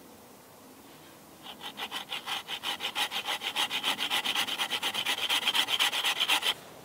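Bahco Laplander folding saw cutting an angled notch into a wooden branch. Rapid back-and-forth strokes start about a second and a half in, grow louder, and stop abruptly shortly before the end.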